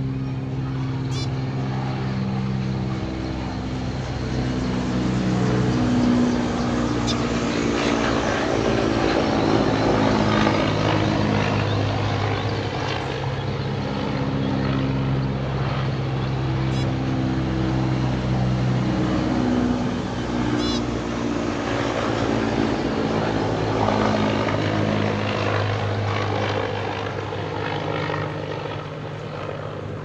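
A few short, sharp zebra finch calls over a loud, steady drone whose pitch shifts every few seconds.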